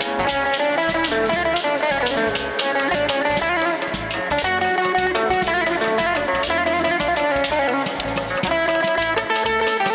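Red semi-hollow-body electric guitar playing a lively melody over an ensemble, with a skin drum struck with wooden sticks keeping a steady beat.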